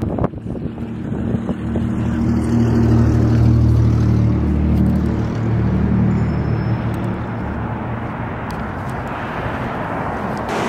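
A vehicle's engine running steadily with a low hum. It grows louder about two seconds in and eases off again a few seconds later, as if passing by or working harder.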